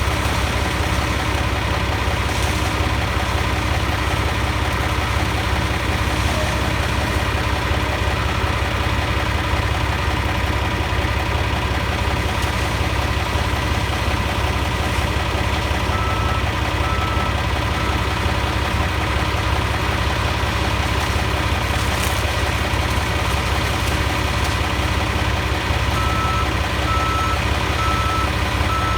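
Diesel engine of a John Deere 333G compact track loader running steadily under load, driving a forestry disc mulcher. Its backup alarm beeps in two runs, about halfway through and again near the end, as the machine reverses.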